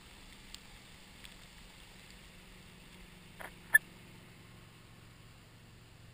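Faint, steady hum of a wakeboard towboat's engine, with a few small clicks and one sharp tick about three and a half seconds in.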